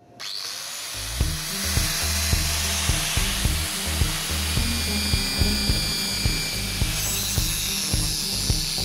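Angle grinder with a cutting disc running and cutting into a steel bar, a steady high-pitched grinding hiss. From about a second in, background music with a steady beat plays under it.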